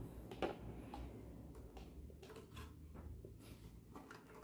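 Faint, scattered soft taps and rustles of hands gripping and tilting a 12-inch Pioneer subwoofer, over a low steady room hum.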